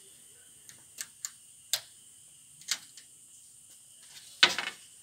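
A few sharp clicks and small knocks, irregularly spaced over the seconds, with one louder knock near the end: hands working the snow bus cab's dash controls and fittings.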